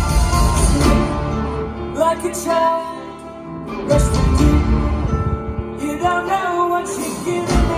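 Soft-rock band playing live over a concert PA, heard from the audience in a large hall: a singer's voice over drums, guitars and keyboards. The music drops back briefly about three seconds in, then swells again.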